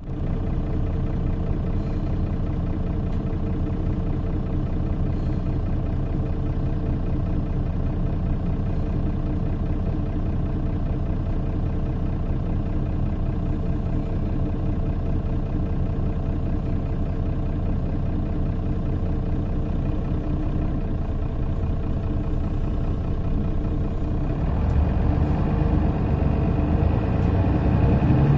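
A bus engine idling steadily, heard from inside the cabin. Near the end it grows louder and changes pitch as the bus pulls away.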